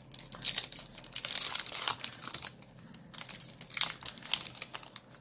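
Foil trading-card booster-pack wrapper crinkling and tearing as it is ripped open by hand, a dense crackle in the first two seconds that thins to scattered crinkles as the cards are pulled out.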